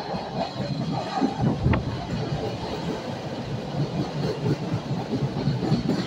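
Chicago 'L' rapid-transit train pulling into the station beside the platform, its steel wheels rumbling along the rails, with a single sharp click about two seconds in.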